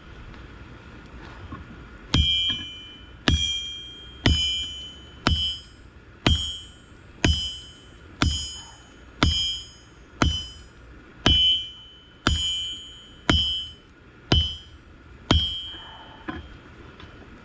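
Hand hammer striking a hot steel camshaft on an anvil, forging it out into a blade: a steady rhythm of about one blow a second beginning about two seconds in, each blow ringing briefly like a bell.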